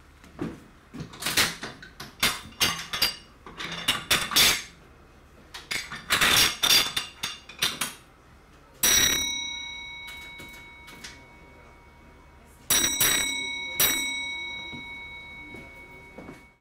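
Metallic clicks and clatter of signal box equipment being worked at the lever frame and key token instrument, then a signal box block bell rings one beat, followed a few seconds later by two beats about a second apart, each note ringing on and dying away slowly.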